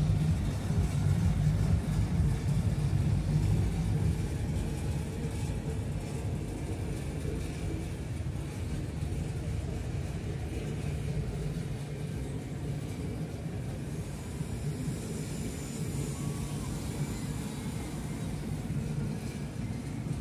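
John Deere tractor engine running steadily as it tows a parade float, a low rumble that is loudest for the first few seconds and then eases slightly as it moves past.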